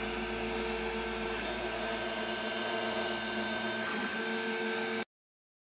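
Anet A8 3D printer running as it lays down its first layer. The stepper motors whine in steady tones that stop and start as the print head changes moves, over a steady hiss. The sound cuts off to dead silence about five seconds in.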